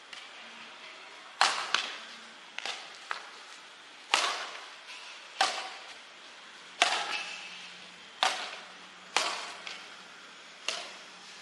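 Badminton rackets striking a shuttlecock back and forth in a rally: a sharp hit roughly every second and a half, each fading off briefly, with a few lighter taps between.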